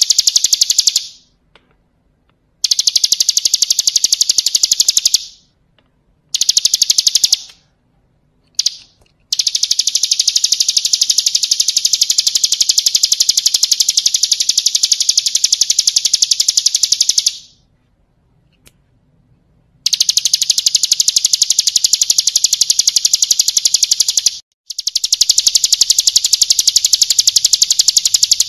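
Bar-winged prinia (ciblek kristal) singing its fast, rattling trill of rapid high notes. The song comes in about half a dozen bouts broken by short pauses, and the longest bout runs about eight seconds.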